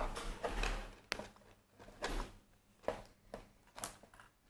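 Handling of a cardboard mooncake gift box with small drawers: a second or so of sliding and rustling, then several separate light knocks and taps as the drawers and lid are moved.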